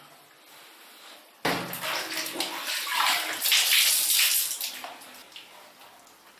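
A wet cloth wrung out by hand, with water splashing onto a tiled floor. It starts suddenly about a second and a half in and fades after about three and a half seconds.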